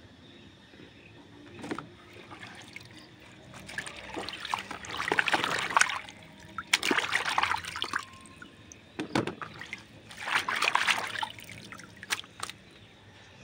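Vegetables being washed by hand in a basin of water: leafy greens, a luffa and a pumpkin slice swished and lifted, the water splashing and sloshing in several bursts with quieter dripping between.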